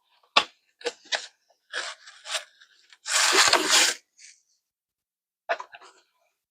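Packaging being unwrapped by hand: a few short rustles and clicks, then a loud tearing, crinkling noise lasting about a second, and two more brief rustles near the end.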